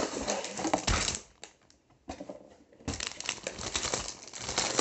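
Plastic sleeve crinkling and cardboard box rustling as a rolled diamond-painting canvas is taken out and handled. The rustling stops for about a second and a half midway, then starts again.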